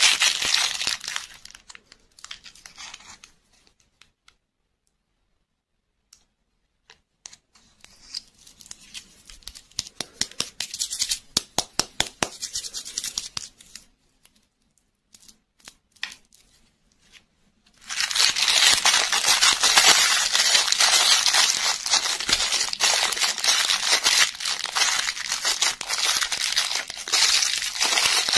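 A clear plastic bag is crinkled and torn open in the hands. It is loud at the start, then mostly quiet with scattered light clicks and rustles for about fifteen seconds, then turns to loud, continuous crinkling and tearing about two-thirds of the way through.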